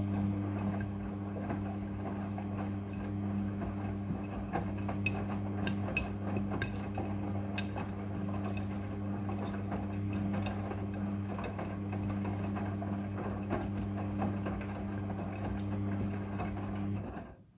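Front-loading washing machine running: a steady low motor hum under a rustling haze, with scattered light clicks and knocks. It cuts off suddenly near the end.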